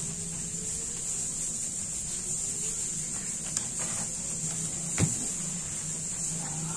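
Laptop keyboard keys pressed to test them: a few light clicks, then one sharper, louder click about five seconds in, over a steady high hiss and a low hum.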